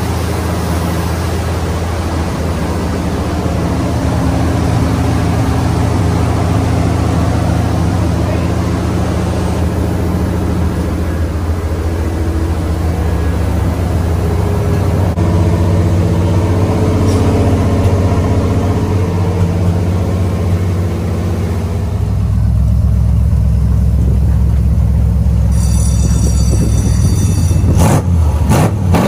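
454 SS Chevy pickup's big-block V8 running through a full 3-inch exhaust with Magnaflow bullet mufflers. It runs steadily at first, its note rising and falling through the middle, then settles to a deeper, lower note, with a few sharp knocks near the end.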